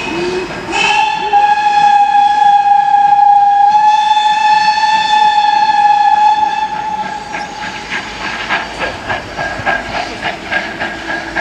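A TKt48 steam locomotive's whistle gives a short rising note, then one long steady blast of about six seconds. It is followed by the locomotive's exhaust chuffing at about three beats a second as it pulls away.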